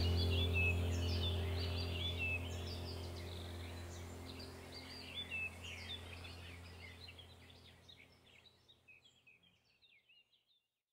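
Background soundtrack of bird-like chirps over a low steady hum, fading out gradually to silence near the end.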